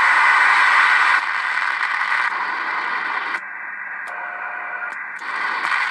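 Ham International Jumbo CB transceiver's speaker hissing with open-channel static, the hiss stepping down and back up as the channel selector is turned from channel to channel. In a quieter stretch past the middle, a faint steady tone sounds for under a second.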